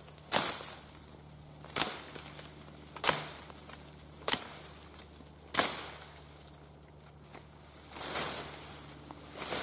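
Fiskars XA23 brush hook chopping into a woody rose bramble: five sharp strikes, about one every second and a quarter, then a softer rustle of stems and brush near the end.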